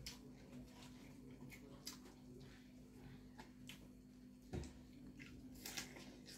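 Faint eating sounds of people eating fried chicken and rice by hand: scattered small clicks and smacks of chewing and of fingers working rice on metal plates. One dull knock a little past halfway, over a steady low hum.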